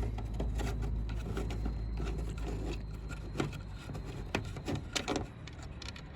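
Irregular small metallic clicks and ticks of a hand tool undoing a T30 Torx bolt on a car boot latch, over a low steady hum.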